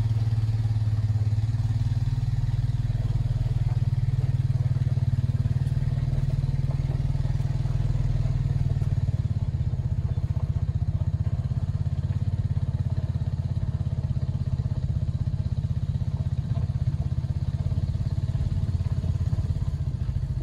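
Quad bike engine running steadily with a low, even hum, heard from inside the van's cab.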